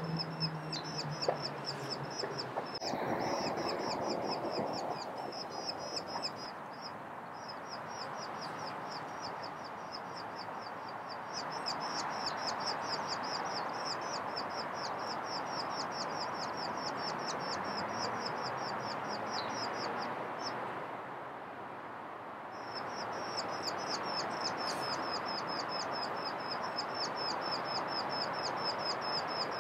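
Eurasian skylark singing a long, rapid, high-pitched warbling song that pauses briefly a few times, over steady background noise.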